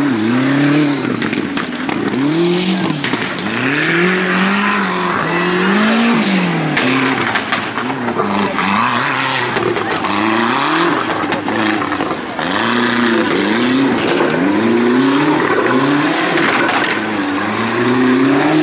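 Off-road racing buggy's engine revving up and falling back over and over, roughly once a second, as it works its way over steep mud mounds.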